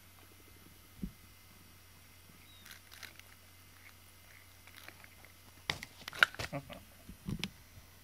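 Cat rubbing its mouth and face against a pink rubber-bristled grooming brush and biting at it: a soft knock about a second in, a few faint scrapes, then a busy run of sharp rubbery clicks and scrapes between about six and seven and a half seconds.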